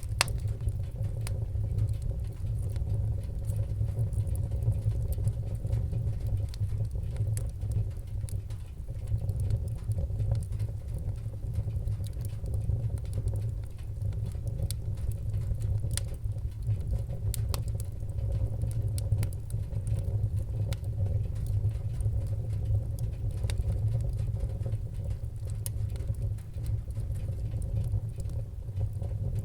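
Fireplace fire crackling: scattered sharp pops and clicks over a steady low rumble of flames.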